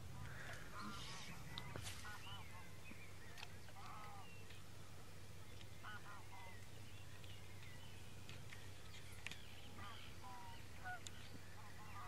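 Geese honking faintly, short calls scattered every second or two.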